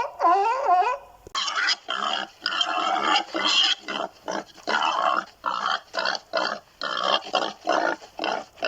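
Animal calls: first a few short calls that waver up and down in pitch, then, after an abrupt change about a second in, a rapid series of short harsh calls, roughly two a second.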